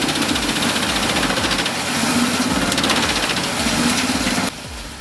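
Heavy wood-processing machinery running loudly with a fast, even rattle, cutting off abruptly about four and a half seconds in. A quieter background music beat is left underneath.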